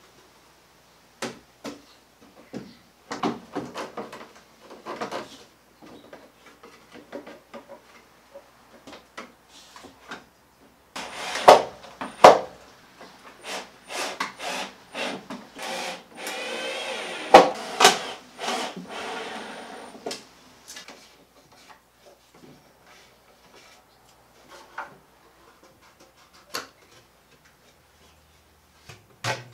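Wooden knocks and rubbing as plywood bins are handled and fitted. About eleven seconds in, a cordless drill runs in short bursts and then one longer run of about four seconds, driving screws to fix the bins' back hinges. A few light knocks follow.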